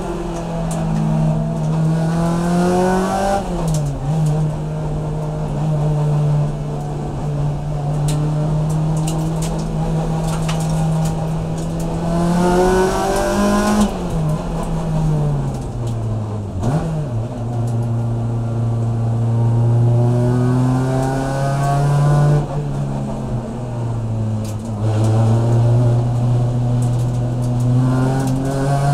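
Race car engine heard from inside the cockpit under race conditions. The revs climb under acceleration and fall sharply several times on gear changes and braking, and are rising again near the end.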